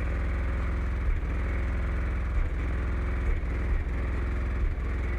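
Music's bass pounding from eight Wolfram Audio PT-18 subwoofers in a 6th-order enclosure, heard inside the vehicle, so loud that the phone microphone overloads and it comes out as a steady, distorted low drone with brief dips every second or so.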